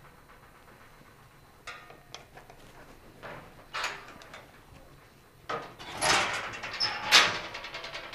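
Latches of a steel electrical control cabinet being worked and its door pulled open: a series of metallic clicks and clunks, loudest about six and seven seconds in, followed near the end by a fast run of small clicks.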